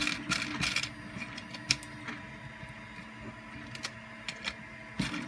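Scattered light clicks and taps of hard 3D-printed plastic parts being handled and fitted together: a freshly sanded rotation gear ring being worked on its servo bracket, with one sharper click near the middle.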